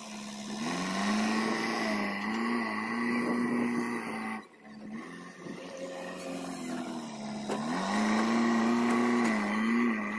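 JCB 3DX backhoe loader's diesel engine revving under hydraulic load as the front bucket works into sand. It comes in two long surges, with a lull about four to seven seconds in, and a thin high whine runs alongside.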